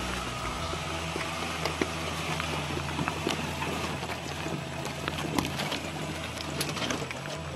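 Suzuki Vitara off-roader crawling over loose rock at low revs, its engine running steadily while stones crack and knock under the tyres in scattered sharp clicks.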